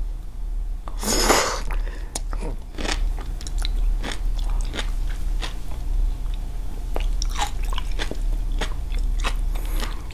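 Sea grapes (umibudo seaweed) bitten and chewed close to the microphone. There is a loud crunch about a second in, then many small crisp clicks as the little beads burst.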